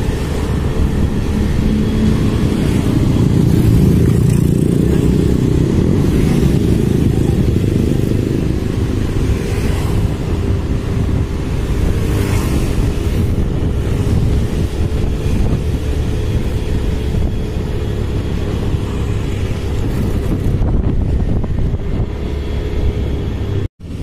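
Motorcycle engine running steadily while riding, with a dense low rumble of road and wind noise and a held, slightly wavering hum. The sound drops out abruptly for a split second near the end.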